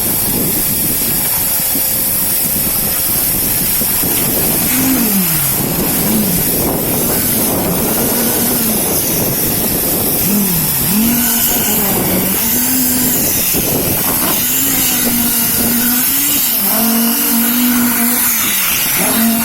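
Concrete pump running: a loud, steady engine-driven noise whose pitch repeatedly dips and climbs back.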